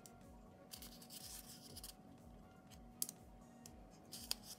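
Paper sticker sheets being handled: short, faint scratchy rustles as a planner sticker is picked up and peeled from its backing, with one light tap about three seconds in.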